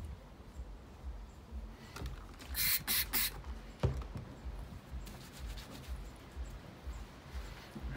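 Three quick spritzes from a trigger spray bottle of window cleaner, followed by a single knock as the bottle is set down on a plastic table.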